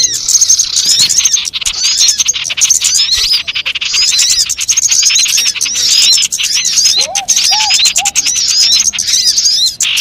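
Many small birds chirping rapidly and without pause in a dense chorus of high, arched notes: a lure recording (suara pikat) meant to draw in small wild birds. Three lower whistled notes come in about seven seconds in.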